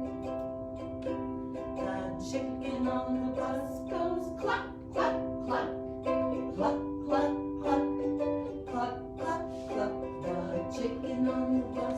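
Ukulele strummed in a steady rhythm.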